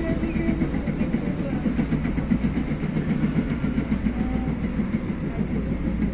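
TE-90 light rail train running along the track, a steady low rumble.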